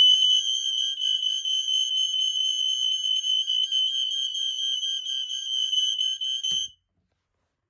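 Smoke alarms going off on a push-button test, led by a Kidde i12040A: a loud, piercing high-pitched alarm tone held without breaks, which cuts off suddenly about a second before the end.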